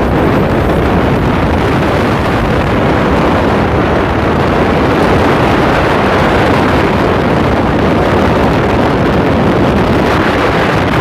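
Loud, steady wind noise buffeting the microphone, the rush of riding on a moving motorcycle.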